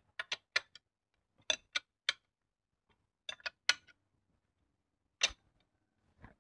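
Socket ratchet working a bolt on the timing gear housing of a Mitsubishi 4D35 diesel engine: sharp metallic clicks in quick clusters of three or four, repeating about every one and a half seconds, then single clicks near the end.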